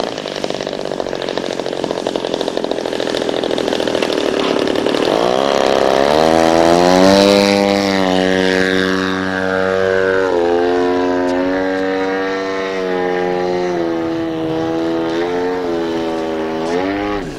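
Desert Aircraft DA-70 twin-cylinder gas engine of a giant-scale RC aerobatic plane: running rough and lower at first, then revving up about five seconds in to a steady high-power drone, with a couple of dips in pitch and a final rise near the end as the throttle is worked.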